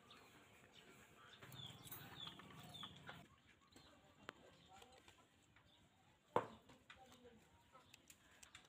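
Near silence with a few faint, short falling bird chirps between about one and three seconds in, then a single sharp click about six seconds in from a screwdriver working on the toy aircraft's plastic housing.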